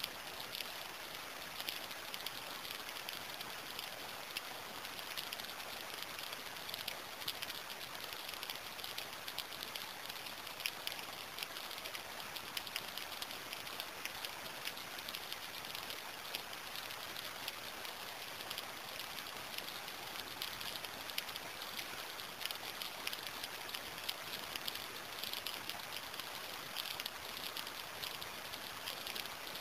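Steady rain falling, a dense spray of small drops ticking on a surface, with no thunder.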